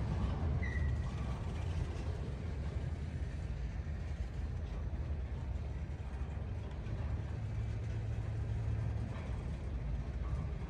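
Low, steady rumble of a freight train, with a faint engine hum for about two seconds past the middle.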